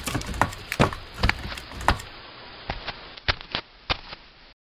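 Footsteps of people walking in boots: sharp, irregular knocks a few times a second, thinning out and growing fainter in the second half before cutting off just before the end.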